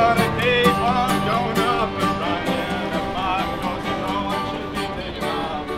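Acoustic guitar strummed with a fiddle playing the tune over it, a country-style street busk.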